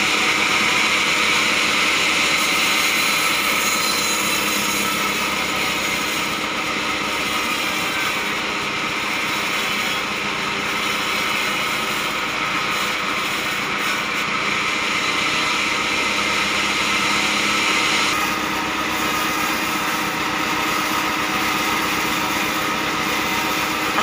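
Sawmill band saw running steadily while cutting a block of very hard acacia wood. A high cutting hiss rides over the machine's steady hum and eases about three-quarters of the way through.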